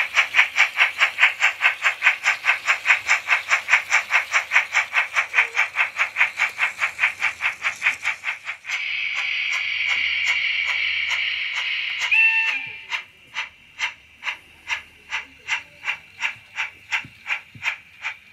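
Onboard sound decoder of an H0-scale Baden class 75 steam tank locomotive model, played through its small speaker. Fast, even steam chuffs come at about four or five a second, then a steady steam hiss for about three seconds, a short whistle toot, and slower chuffs at about two a second.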